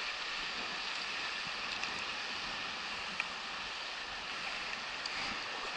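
Shallow river water running steadily over rocks in a riffle, an even rushing, with one faint click a little past three seconds in.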